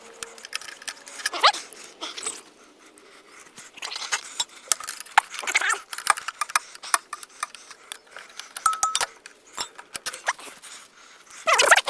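Hand tools clicking and clinking against metal as bolts are worked out of a Harley's front fender guard, with a few short pitched calls in between.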